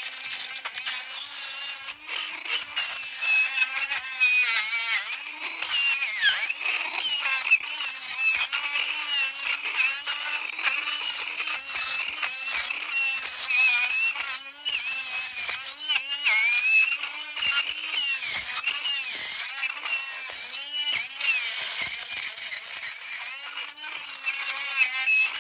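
High-speed rotary tool spinning a Magi Burr cutter in the keyway of a brass euro cylinder plug, grinding through the plug's pin chambers. The motor's whine runs continuously, dipping and wavering in pitch as the burr bites into the brass.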